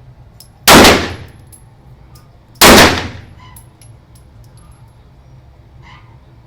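Two handgun shots about two seconds apart, each a sharp report with a short echoing tail in the range, followed by a few faint clicks.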